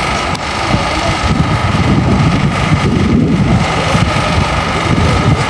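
Wind buffeting the microphone over the steady hum of an engine at idle.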